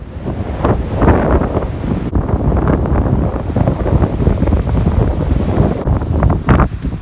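Wind buffeting the microphone in irregular gusts, loud and strongest in the low end.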